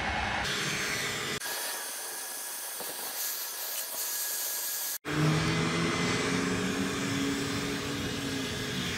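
Corded heat gun blowing steadily on a 4-inch PVC pipe to soften it for bending, a fan-and-air noise with a low motor hum. The sound jumps abruptly about a second and a half in and again about five seconds in.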